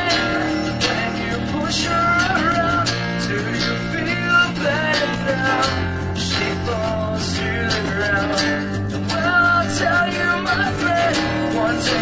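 Live band playing amplified rock music, with strummed guitars, including an acoustic-electric guitar, and a steady low bass.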